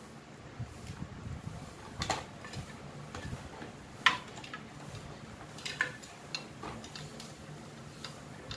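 Scattered light clicks and taps of wiring being handled and spade terminals pushed onto a motorcycle loud horn's terminals, the sharpest snap about four seconds in, over a faint low hum.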